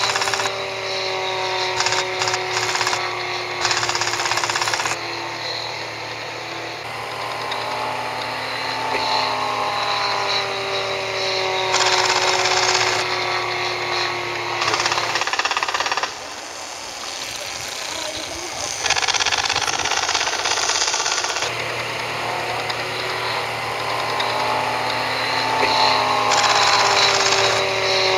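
Radio-controlled model airplane engine buzzing in flight, its pitch sliding down and up again several times as the plane makes passes, and quieter for a few seconds past the middle.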